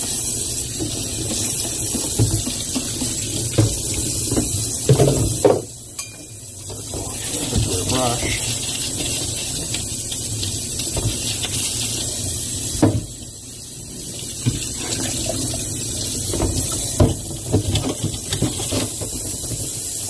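Tap water running into a stainless steel sink and splashing over a vacuum cleaner's cyclone and filter assembly as it is washed and scrubbed with a bristle brush. The water sound drops briefly twice, around 6 and 13 seconds in, and scattered knocks of the parts against the sink stand out.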